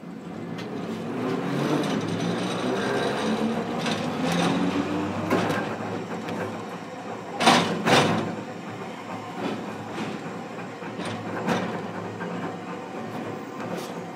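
Hiroden 700 series tram pulling away and picking up speed, heard from inside the car: its motor and gear hum rises steadily in pitch for the first few seconds. About halfway through come two loud knocks half a second apart as the wheels cross rail joints, then it runs on with lighter clicks.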